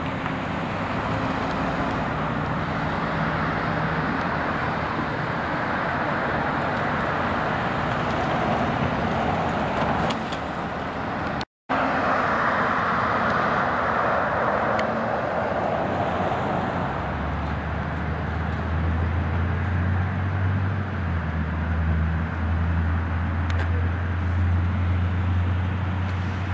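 Road traffic: a steady wash of car tyre and engine noise going by, with a low engine hum coming in about two-thirds of the way through. The sound drops out for a split second near the middle.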